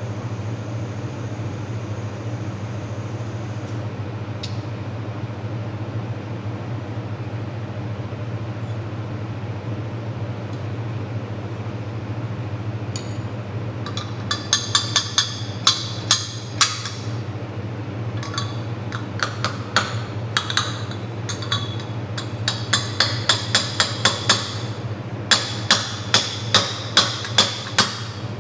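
Steady low hum of a fiber laser welding machine running. About halfway in come runs of sharp, evenly spaced ticks, a few a second, each run lasting a few seconds, as the laser pulses weld the metal.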